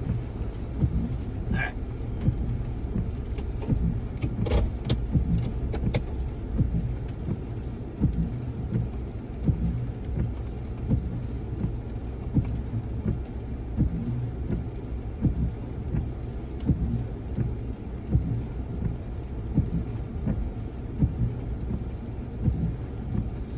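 Bronco crawling slowly over rocks in four-low, heard from inside the cab: a low, uneven rumble of engine and tyres, with a few light clicks in the first six seconds.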